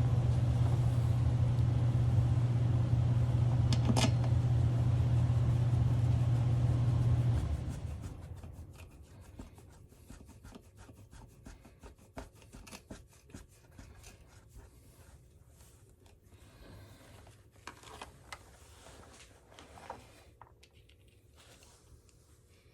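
A motor running steadily with a strong low hum, which shuts off about seven seconds in. Light clicks and scrapes of hand tools on metal parts follow.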